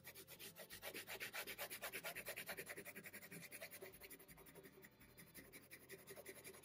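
Colored pencil shading on paper: faint, quick, even back-and-forth scratching strokes, several a second, as the blue pencil fills in a large area.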